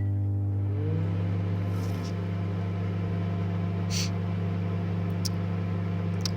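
Microwave oven running: a steady low electrical hum. There is a faint rising whine about a second in, and a few light clicks later on.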